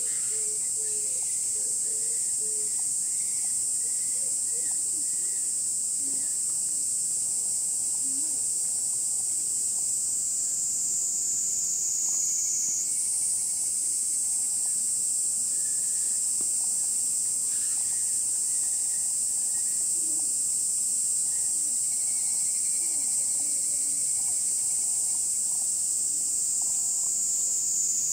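A chorus of cicadas buzzing loudly and steadily at a high pitch. The pitch slowly sinks, jumps back up about halfway through, then starts sinking again.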